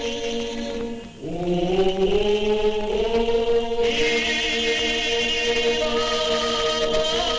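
Abkhazian folk choir singing a slow polyphonic chant: voices holding long notes over a steady low drone. About a second in the sound briefly drops away, then the voices come back in, sliding up onto their held notes.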